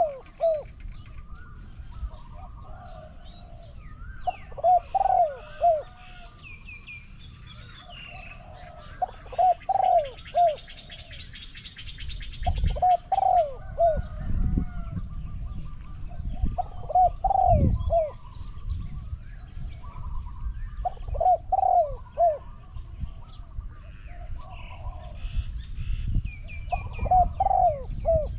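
Spotted dove cooing: a phrase of three or four low, arching notes, repeated about every four to five seconds. Small birds chirp higher in the background.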